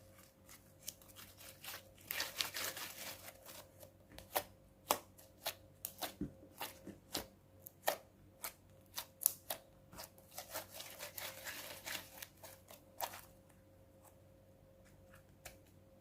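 Clear-glue and borax slime being squeezed and worked by hand, giving irregular sharp clicks and pops with two stretches of denser wet crackling. The sounds stop about three seconds before the end.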